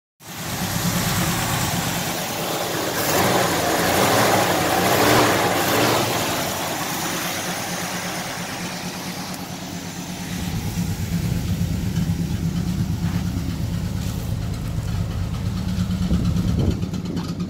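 1969 Chevrolet Impala's V8 engine running at idle, with a louder stretch a few seconds in.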